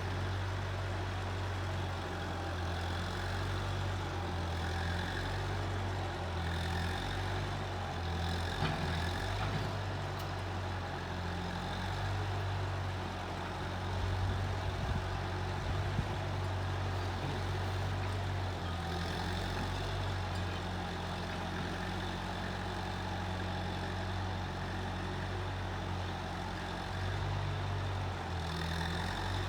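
Case 1530 Uni-Loader skid steer's engine running steadily, its note shifting a little now and then, with a few light knocks around the middle.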